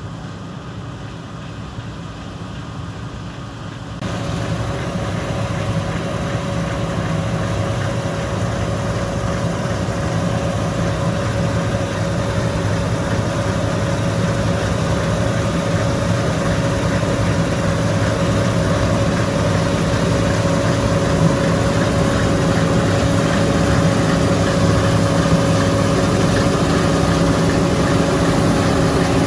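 Heavy diesel engine of harvest machinery running steadily with a low drone. About four seconds in it gets suddenly louder and a steady whine joins it.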